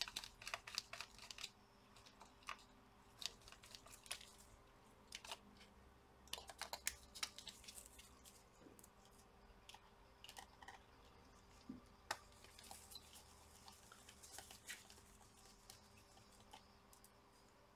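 Faint, scattered clicks and taps of a small screwdriver and small metal and plastic laptop parts being handled while a hard-drive bracket is unscrewed, over a faint steady hum.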